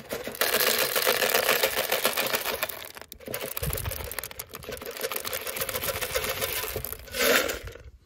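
Dried pea seeds poured from a steel can into a plastic seeder hopper: a dense, continuous rattle of seeds hitting plastic and each other. It pauses briefly about three seconds in and ends with a short loud rattle near the end.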